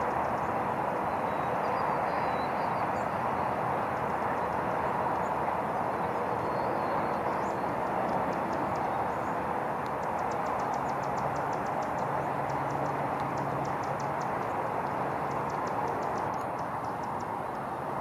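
Steady outdoor background rush with no clear bird call in it. Faint, quick high ticks come in about halfway through.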